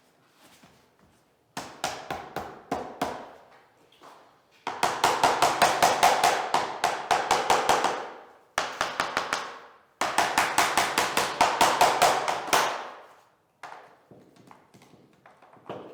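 Rapid tapping of a mallet on vinyl click flooring planks, knocking them into place. The strikes come about six a second in bursts of a few seconds, each with a short ring.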